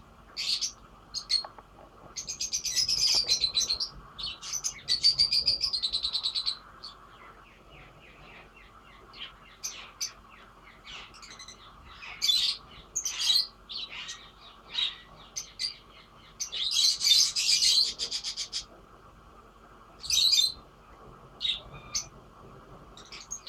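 Lovebirds chirping in short, shrill high calls, with longer runs of rapid chatter about two seconds in, around five seconds in, and again about seventeen seconds in.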